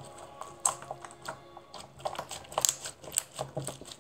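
Slime being kneaded and squeezed by hand, giving off irregular crunching clicks and pops, several a second.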